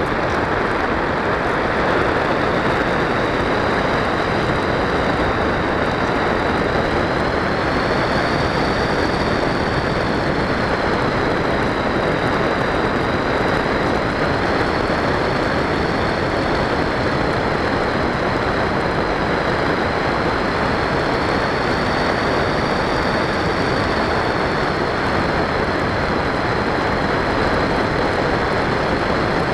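Easystar 2 model plane's electric pusher motor and propeller running, with wind rushing past the onboard camera: a steady rushing noise under a high whine that wavers slightly in pitch.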